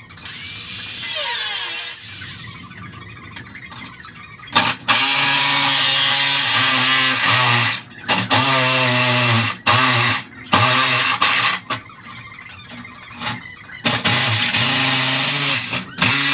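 Power tool working on automotive sheet metal, run in repeated bursts of one to three seconds with short pauses between them; its pitch wavers and dips while it bites.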